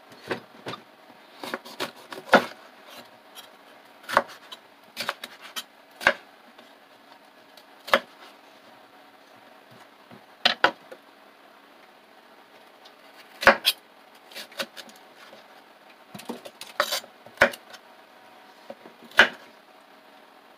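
Chef's knife cutting a red bell pepper on a wooden cutting board: irregular sharp knocks of the blade striking the board, some in quick clusters with pauses between, a few much louder than the rest.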